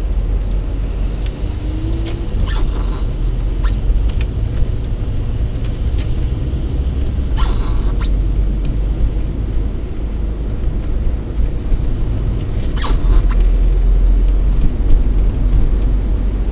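Steady low rumble of a car's engine and tyres on a wet, slushy road, heard inside the cabin through a dashcam's built-in microphone. A few short clicks and hisses break in, the longest about halfway through and again near 13 seconds in.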